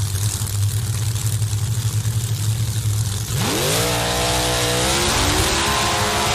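Pro Modified drag car's V8 idling with a steady low rumble; about three and a half seconds in it revs up sharply and holds at high revs, and the revs climb again near the end.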